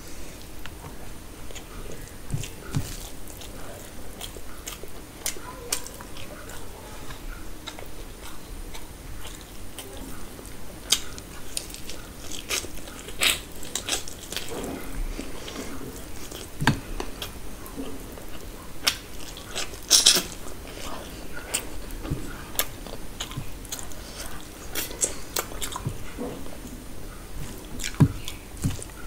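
A person chewing mouthfuls of chicken biryani eaten by hand, close to the microphone, with many short wet mouth clicks and smacks; the sharpest smacks come about twenty seconds in and near the end.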